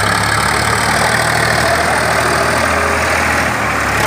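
Diesel farm tractor engine idling steadily at low revs while the tractor is backed up to be hitched for a tug-of-war pull.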